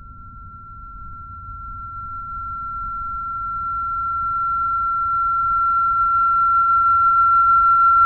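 A single steady high-pitched electronic tone, swelling louder throughout, over a low rumble: a sustained sine-like tone used in the film's sound design.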